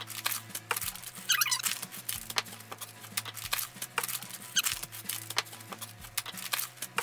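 Baking supplies being taken out of a kitchen drawer: packets and bags crinkling, and containers knocking down one by one, with a short run of high squeaks about a second in.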